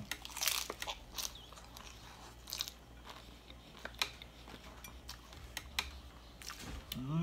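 Crunching and chewing of a crisp fried corn tostada topped with shredded beef: sharp crackling bites, densest in the first second, then scattered crunches while chewing.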